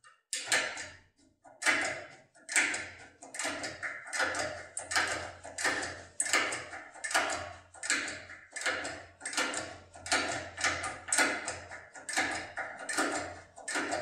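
Topolino-type pick-decoder being worked in an ABUS D6 euro cylinder: uneven metallic clicks and rattles, about one or two bursts a second, as the tool is turned and wiggled against the lock's pins.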